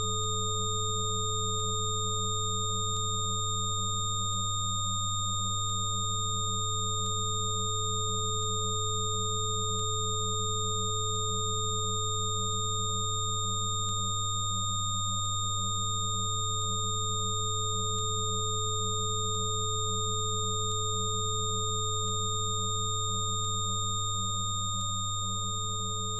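Electronically generated sine tones for sound therapy: a steady low hum with several higher pure tones held above it. One of the middle tones dips briefly about every ten seconds, and faint ticks come about once a second. The whole sound begins to fade near the end.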